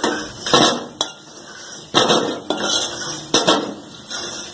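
Flat metal spatula scraping and knocking against a kadhai and a steel plate as fried besan pieces are scooped out and set down. About half a dozen clatters and scrapes come in an uneven run.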